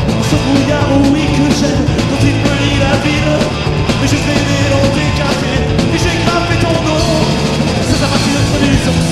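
A rock band playing live, loud and steady, with a voice singing over the band.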